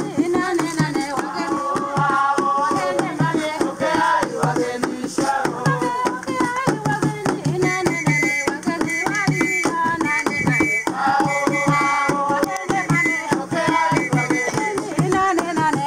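Village dance music: two hand drums beaten in a steady rhythm while a group of voices sings along.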